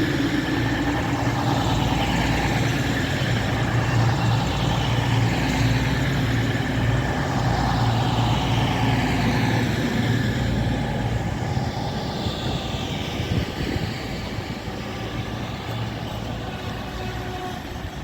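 Class 222 Meridian diesel multiple unit's underfloor engines running with a steady drone as the train moves along the platform, the sound slowly fading.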